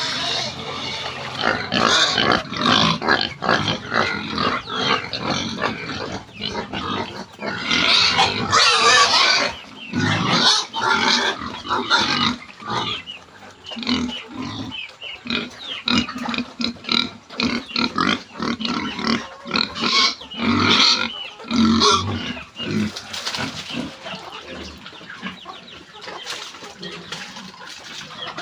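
A group of pigs squealing and grunting in short, overlapping calls. The calls are loudest over the first ten seconds or so and thin out toward the end.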